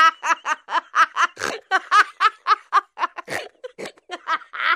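A person laughing in a long run of quick, high-pitched bursts, about four or five a second.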